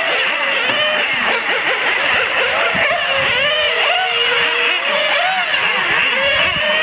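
Several small nitro glow engines of 1:10 RC touring cars, revving up and down as they race. Many high-pitched engine notes overlap, each rising and falling as the cars accelerate and brake.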